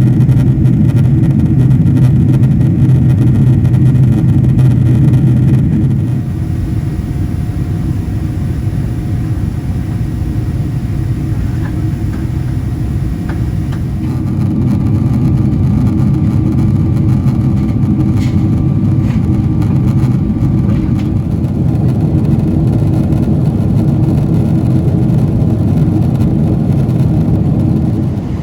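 Cabin noise of a Boeing 777-300ER in flight: a steady, loud rumble of its GE90-115B jet engines and airflow heard from inside the cabin. It drops in level about six seconds in and rises again about fourteen seconds in.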